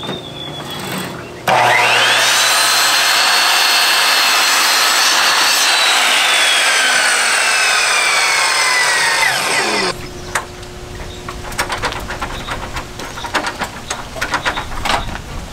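Electric saw cutting a cedar trim board. The motor whines up to speed suddenly about a second and a half in, runs through a long cut with its pitch sagging toward the end, and stops about ten seconds in. Scattered light knocks follow.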